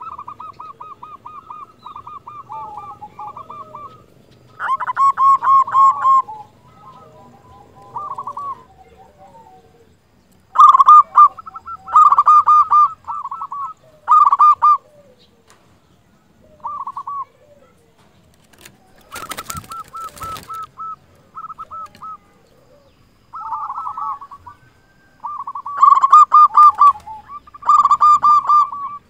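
Zebra dove (local perkutut) cooing: repeated rapid, trilled phrases in bouts, some much louder than others. About two-thirds of the way through comes a short burst of noise.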